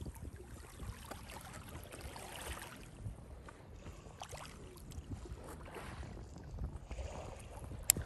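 Small waves lapping and sloshing against a rocky lakeshore, faint, with a low wind rumble on the microphone and a sharp click near the end.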